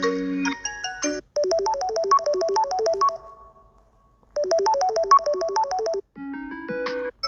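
Samsung Galaxy Note 10 ringtones and alert tones playing one after another. The end of one tone is followed by a short, bright melody of quick notes that plays twice with a pause between. A different short tone with lower notes comes near the end.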